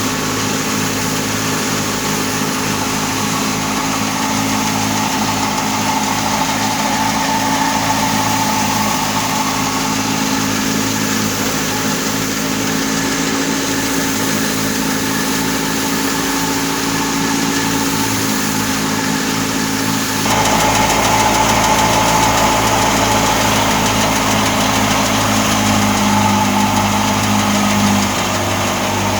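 Engine of a wheat harvesting machine running steadily, with a sudden jump to a louder, fuller sound about twenty seconds in.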